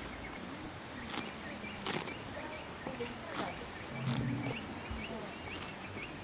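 Steady high-pitched chirring of crickets or other insects, with scattered sharp clicks and a short low sound about four seconds in.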